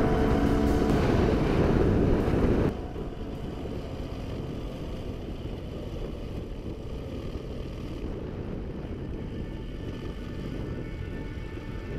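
Enduro motorcycle being ridden, heard from a helmet camera: a steady engine drone mixed with wind rush on the microphone. It drops sharply in level a little under three seconds in.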